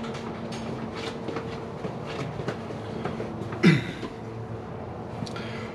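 Metal sockets and tools clinking and clicking as they are handled while the right size socket for an impact driver is picked out, with one louder clank about three and a half seconds in. A steady low hum runs underneath.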